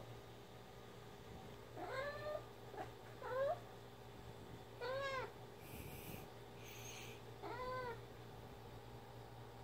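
Domestic cat giving a string of short, mumbled meows, about five, each one rising and then falling in pitch, with gaps of a second or two between them.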